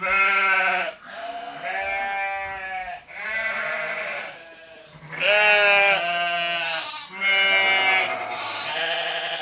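Sheep bleating over and over: about seven long bleats, each close to a second, with short gaps between them, the loudest just past the middle.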